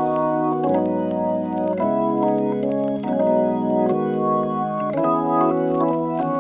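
Background music of sustained organ chords, changing about once a second, with a light ticking beat.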